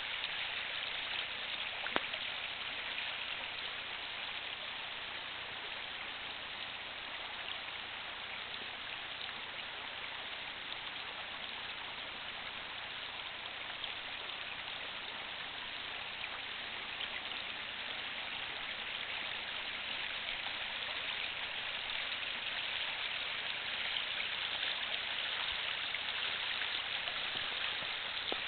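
A small creek running, a steady rushing hiss of water, with one brief click about two seconds in.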